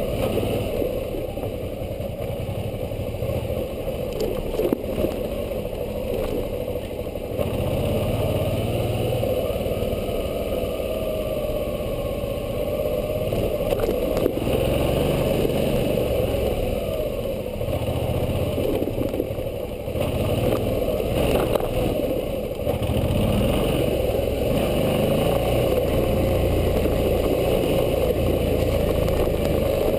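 Suzuki V-Strom 650's 645 cc V-twin engine running as the motorcycle rides along a dirt trail, its note rising and easing with the throttle. A few sharp knocks and rattles from the bike over the bumpy ground.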